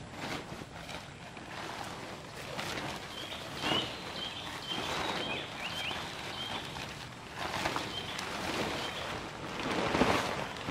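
Consina tent fabric rustling and crinkling as it is pulled from its bag and shaken out, in repeated swells, with a loud flap about ten seconds in as the tent is flung open.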